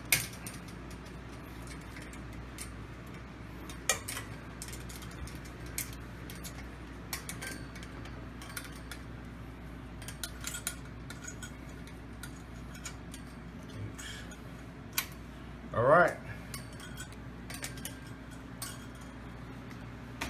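Scattered clicks and clinks of artificial palm tree parts being handled and fitted together. About three-quarters of the way through comes a short wavering squeak, the loudest sound.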